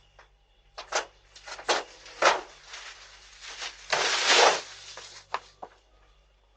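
A string of short knocks and rustles, with a longer, louder rustle about four seconds in, over a steady low electrical hum. It comes through a doorbell camera's microphone.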